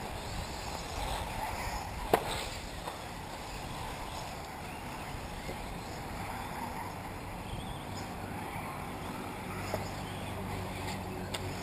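1/8-scale electric off-road RC buggies running on a dirt track, a steady background of motors and tyres. A sharp click about two seconds in and two fainter clicks near the end, with a low hum coming in around seven seconds.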